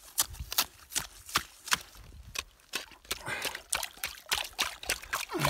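A knife blade stabbed repeatedly down into lake ice, chipping at the edge of a small hole to widen it, about two to three sharp strikes a second, with water splashing in the hole.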